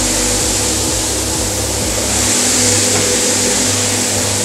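Ghibli & Wirbel SB 143 L 10 single-disc floor scrubber running, its 1000 W motor humming steadily with a hiss as the rotating brush scrubs the floor.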